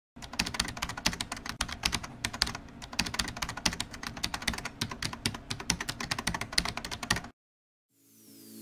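Computer keyboard typing sound effect: rapid, dense key clicks for about seven seconds, stopping abruptly. Near the end a falling tone sweeps down as music fades in.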